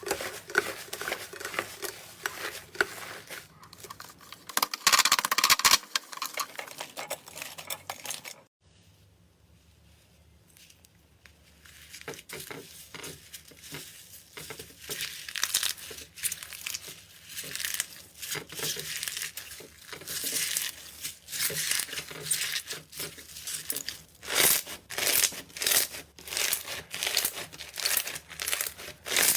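Slime being squeezed and pressed by hand, giving a run of crackling pops and squishes. It breaks off for a few seconds of near quiet about a third of the way in, then resumes, the crackles coming thicker and sharper toward the end.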